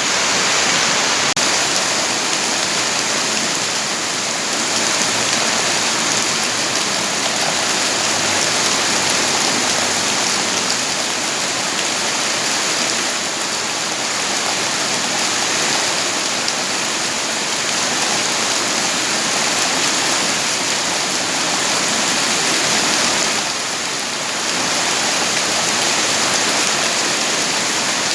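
Steady heavy rain falling, a dense, even hiss of water.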